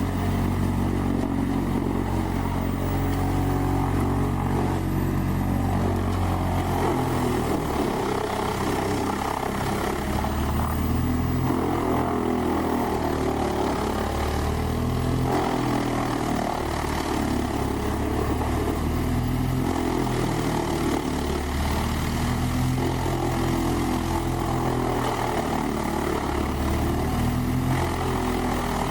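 Large diesel engine of a whole tree chipper running hard, its pitch shifting up and down several times as the machine takes and sheds load.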